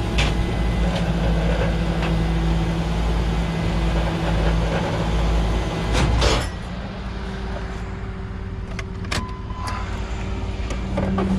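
Tow truck running with a steady, pitched drone under load that stops after about six seconds, leaving a quieter idle hum and a few sharp clicks.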